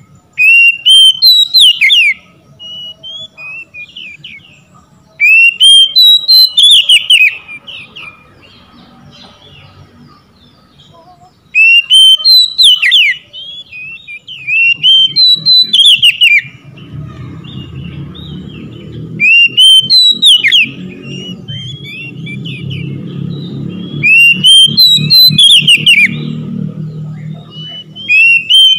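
Oriental magpie-robin singing: loud whistled phrases of quick rising and falling notes, each a second or two long, repeated every few seconds. A low rumbling noise runs under the song through the second half.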